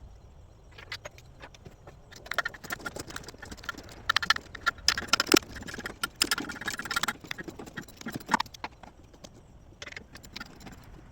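Hand tools and metal parts clinking and knocking against the engine in an irregular run of sharp clicks, some with a short metallic ring. The clicks come thickest and loudest in the middle stretch.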